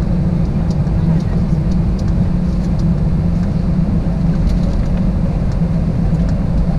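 Cabin noise of an Airbus A320-211 taxiing after landing: a steady low rumble from its CFM56 engines at idle and its wheels rolling on the taxiway, with a few faint light clicks.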